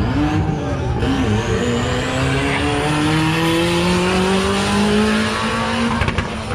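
Performance car engine pulling hard, its pitch climbing slowly and steadily for several seconds, with a thin high whistle rising over the first few seconds. A few sharp crackles come near the end as the engine note drops.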